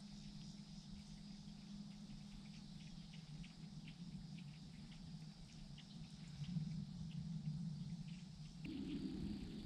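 Faint marsh ambience: a steady high insect drone with scattered light ticks, over a low hum that grows louder near the end.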